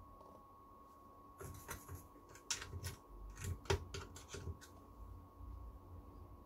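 A quick run of about ten short, scratchy scraping strokes of a tool working on a phone's circuit board as excess solder is cleared from the charging-port pads, over a faint steady hum.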